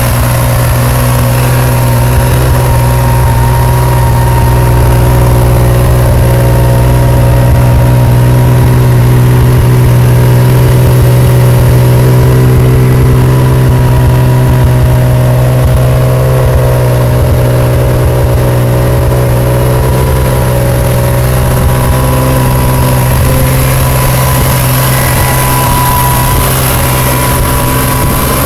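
1982 Honda CBX's air-cooled inline six-cylinder engine idling steadily, a new-old-stock engine run for the first time after 32 years in storage.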